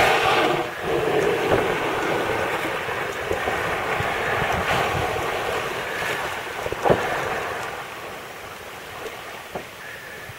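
Wind on the microphone and sea water washing around a drifting sailboat, a steady rushing noise that slowly fades, with one short knock about two-thirds of the way through.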